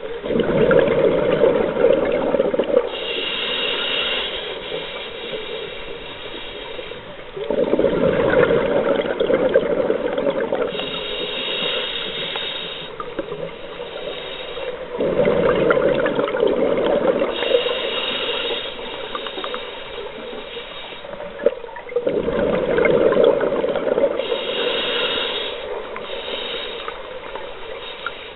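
A scuba diver breathing through an open-circuit regulator underwater: a hissing inhalation with a thin high whistle from the demand valve, then a gurgle of exhaled bubbles. Four slow breaths, about seven seconds apart.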